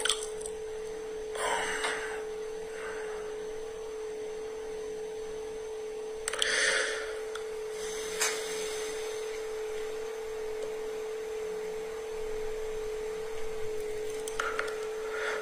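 A steady single-pitched tone held without a break, with a few faint short rustle-like noises over it; the tone cuts off near the end.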